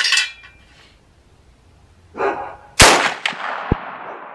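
A Marlin 1895 lever-action rifle in .45-70 Government fires one loud shot about three seconds in, followed by a long echoing tail. Near the start, a metallic clack as the lever is worked to chamber the next round.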